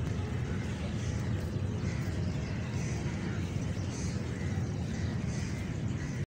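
Outdoor ambience: a steady low rumble of background noise, which cuts off suddenly near the end.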